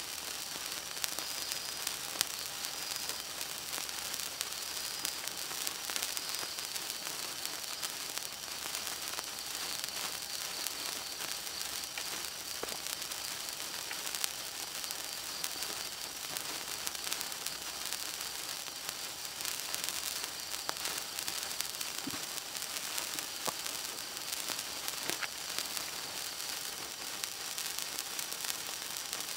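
A 36-inch gold wire sparkler burning with a steady hiss and scattered small crackles.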